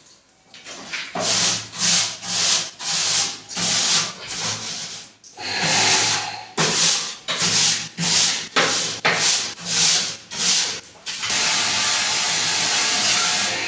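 Rhythmic rubbing or scrubbing strokes, about two a second, on an air-conditioner outdoor unit. About eleven seconds in they give way to a steady hiss.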